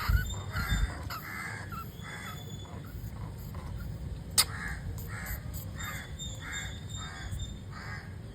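A crow cawing over and over, about two caws a second with a short pause midway, and a single sharp click about four seconds in.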